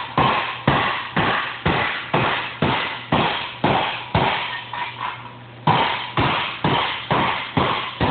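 Hand hammer striking the sheet-metal edge of a Model A quarter panel about twice a second, each blow ringing briefly, with a few lighter taps near the middle. The flatter face of the hammer is shrinking the flange, only slightly.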